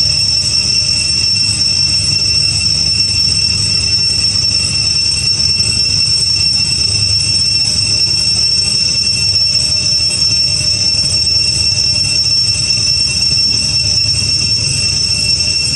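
Cicadas droning in a steady, shrill chorus over a low rumble.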